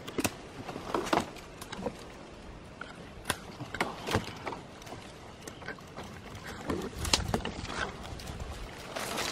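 Dry twigs and brush crackling and snapping in irregular sharp clicks as branches are pushed aside and cut with pruning shears.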